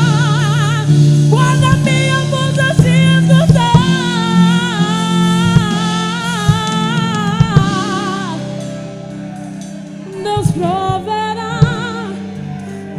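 Live gospel worship music: a woman singing long notes with vibrato over a band with keyboard chords and drum kit. The singing and band ease off for a couple of seconds past the middle, then pick up again with drum hits.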